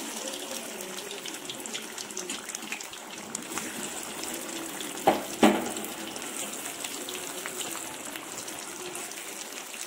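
Marinated chicken pieces frying in hot coconut oil: a steady sizzle with small crackling pops. Two sharp knocks come close together about halfway through.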